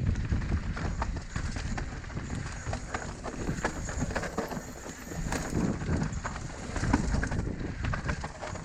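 Mountain bike riding down a rough, slippery dirt trail: tyres rumbling over the ground with a quick, irregular run of knocks and rattles from the bike as it goes over bumps, and wind on the microphone.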